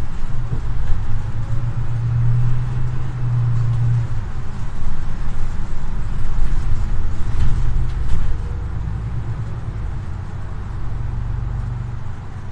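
Solaris Urbino 18 IV articulated bus's Euro 6 diesel engine running while the bus is under way, heard from inside the passenger cabin as a low drone with road noise. It eases off about eight seconds in.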